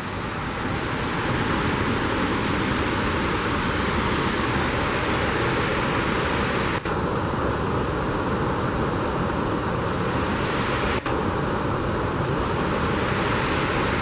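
Steady rushing of a fast-flowing creek and waterfall, dropping out for an instant twice, about 7 and 11 seconds in.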